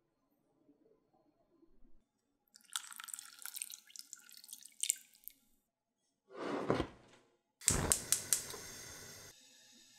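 Water poured into a bowl of chicken and sauce, splashing for a couple of seconds. After a brief noise, a gas stove burner ticks several times as it is lit, and the flame hisses steadily.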